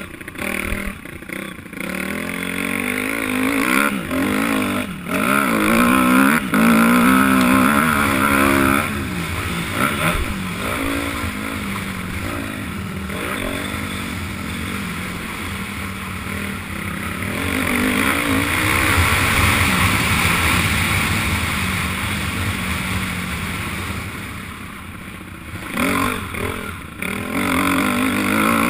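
Honda 250 motocross bike engine, heard from the rider's onboard camera, revving up and down again and again as the throttle opens and closes around the dirt track, with wind noise. The engine eases off for a couple of seconds near the end before revving up once more.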